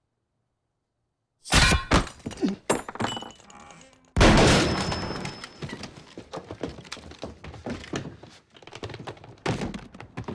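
Sudden loud bangs with breaking and splintering, a cluster about a second and a half in, then the loudest blast about four seconds in with a long fading echo, and another bang near the end: gunfire through a wooden door.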